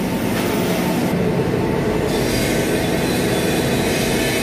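Gas-fired industrial curing oven running, a steady mechanical noise with a low hum from its burner and the blower that keeps the hot air circulating in the chamber.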